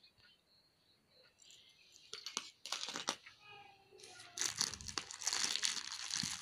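Bubble-wrap-lined plastic mailer bag crinkling and crackling as a hand rummages inside it. It is faint at first, with a few scattered crackles, then turns into steady, louder crinkling from about two-thirds of the way in.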